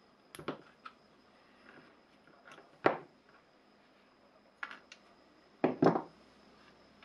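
Sharp clicks and knocks of pliers and metal tabs as an old 18650 lithium-cell drill battery pack is pulled apart, with parts and the pliers set down on a cutting mat. The knocks come a second or two apart, the loudest about three seconds in and a quick pair near the end.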